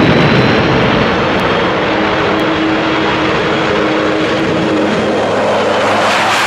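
Loud, steady aircraft-engine drone with a low hum held through it, used as the sound of a ferry flying overhead.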